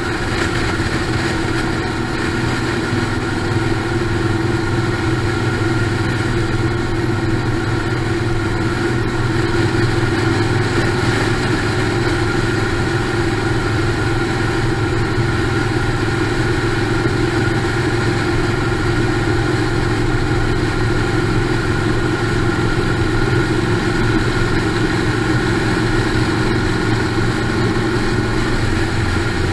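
Motorcycle engine running steadily at cruising speed, with wind and road noise at riding speed.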